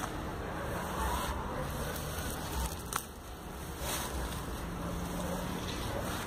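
Tall grass rustling and swishing as someone moves through it, with a few short crackles, over a steady low rumble of wind on the phone microphone.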